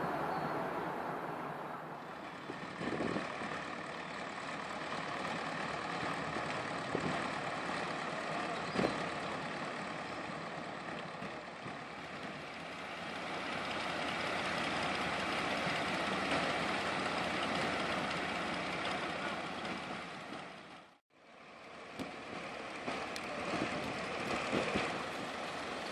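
A vehicle engine running steadily, with a brief sudden drop-out about three quarters of the way through.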